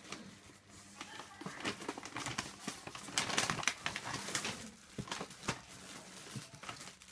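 Rustling and crinkling of a paper bag with small knocks as a toddler rummages through it, busiest and loudest around the middle.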